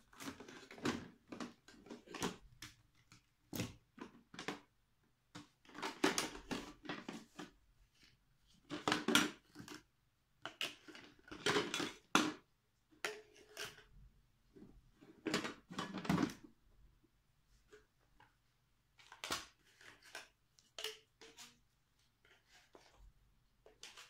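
Plastic parts of a Hitachi Stowaway vacuum cleaner being handled: the corrugated hose and plastic tools are lifted out of its hard plastic storage case and the extension wands are picked up, giving irregular clattering, knocking and rustling with short pauses between. The cleaner's motor is not running.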